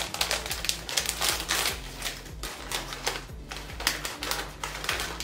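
A plastic snack-chip bag being torn open and crinkled by hand: a dense run of irregular crackles.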